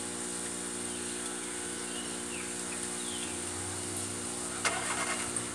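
Cotton candy machine running with a steady hum while its spinning head throws sugar floss into the bowl. A sudden sharp clack about three-quarters of the way through, followed by a few smaller ones.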